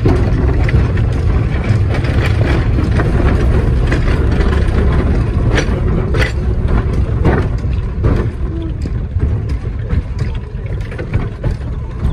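Replica Puffing Billy early steam locomotive running, heard from the wagon coupled behind it: a steady low rumble of wheels on the rails, with irregular metallic clanks and knocks that become sparser near the end.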